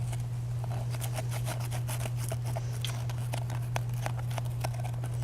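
A stick poking and scraping at dirt packed into a bird bath's drain: a rapid, irregular run of small clicks and scratches over a steady low hum.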